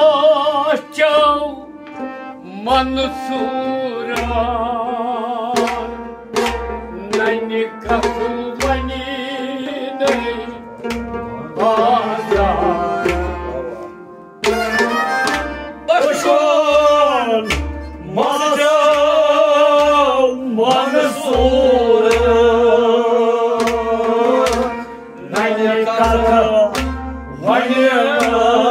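Kashmiri Sufi song: a man sings long, wavering held notes over a steady harmonium drone, accompanied by a plucked rabab and repeated low drum strokes.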